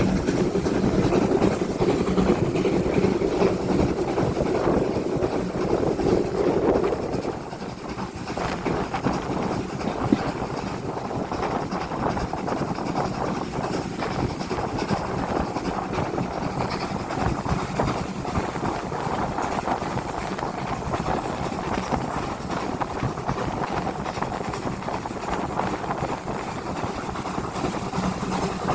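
Train running on a heritage steam railway: a steady rumbling noise, louder for the first seven seconds or so, then quieter and even.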